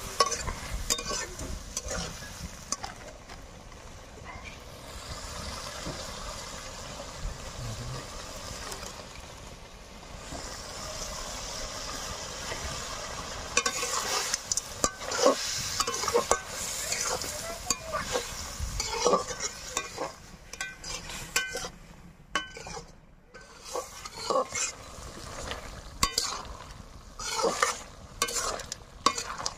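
Goat offal sizzling as it fries in masala in a large kadai. A wooden spatula stirs it, scraping and knocking against the pan in irregular strokes that come thicker in the second half.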